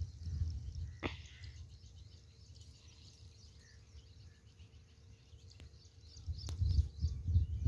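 Wind buffeting the phone's microphone in gusts, loudest near the end, over faint chirping of birds and a few sharp clicks.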